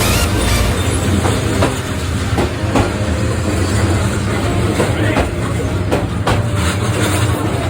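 A train passing close by on a street-level track: a steady low rumble of running gear, with irregular sharp clacks from the wheels over the rail joints.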